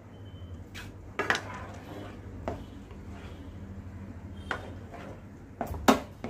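Steel spoon knocking and scraping against the rim of a frying pan while ghee is scraped off it into a thick milk-and-flour mixture: a handful of scattered sharp clinks, the loudest ones near the end.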